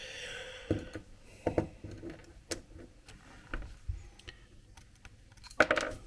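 Scattered small clicks and taps of a PL259 coax connector's metal parts and tools being handled on a workbench, with a louder cluster of clatters near the end. A soft hiss in the first second.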